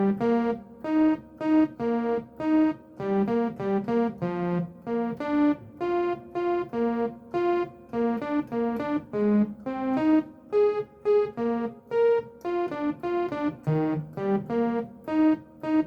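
Electronic keyboard playing a gospel song's intro slowly, note by note and in small chords, at an even pace of about two strokes a second.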